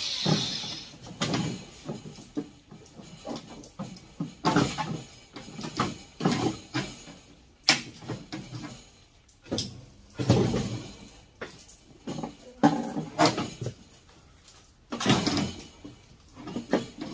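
Irregular knocks, clanks and rattles of furnace sheet metal and parts being handled and pulled apart by hand, with a few sharp clicks.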